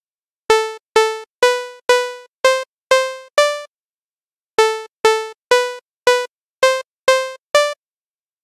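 FL Studio's Wasp synthesizer played one note at a time: two runs of seven short notes, each note fading quickly, each run climbing a few steps in pitch, with a short pause between the runs.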